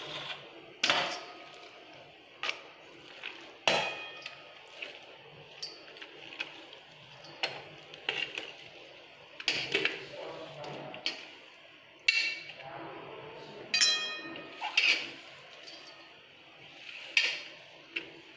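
Stainless steel plate and bowl clinking as grated bottle gourd and chopped onion are scraped by hand from the plate into the bowl. The knocks come irregularly, a few seconds apart, several with a brief metallic ring.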